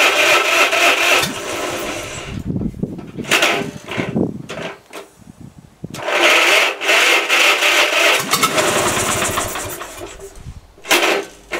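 Electric starter cranking a Wisconsin THD two-cylinder air-cooled engine in two long bursts with a steady whine, with irregular low thumps between them and a short burst near the end. It cranks slowly, which the owner puts down to voltage drop through the jumper-cable connections.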